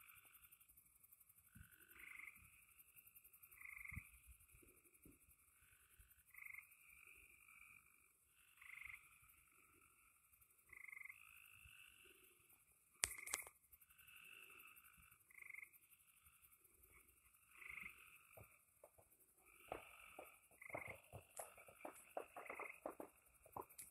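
Faint chorus of frogs calling in the dark, a call every second or two. A single sharp click comes about halfway through, and a run of soft clicks follows near the end.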